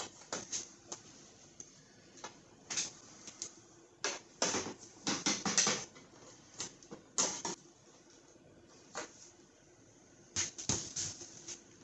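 Irregular clicks, taps and rattles of hands working the F-150's third brake light and its wiring connector in the opening at the top of the cab. They come in short clusters with quiet gaps between, busiest about four to six seconds in.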